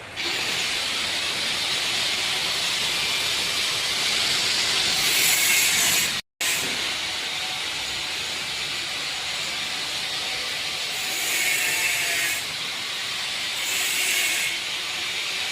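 CO2 (MIG) welding arc hissing and crackling steadily in two long runs, broken by a sudden short gap about six seconds in.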